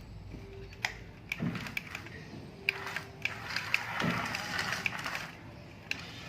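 Scattered light clicks and rattles at irregular intervals, with short bursts of scraping noise.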